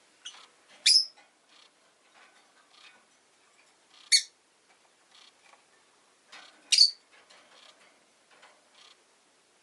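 Rosy-faced lovebird calling: three loud, sharp, brief calls about three seconds apart, with fainter short chirps in between.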